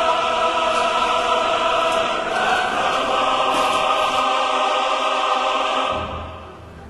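Choral music on the soundtrack: a choir holds a sustained chord that fades out about six seconds in, and a low hum comes in underneath near the end.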